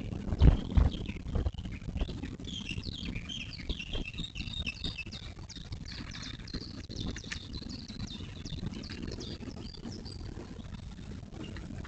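Small birds singing, a dense run of short, high chirps and quick glides that thins out after about seven seconds. A few low thuds come in the first second and a half, the loudest sounds here.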